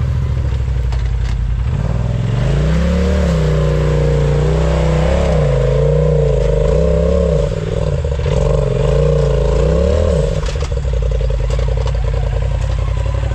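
Off-road vehicle engine running steadily, then revving up and down repeatedly for several seconds before settling back to a steady lower idle.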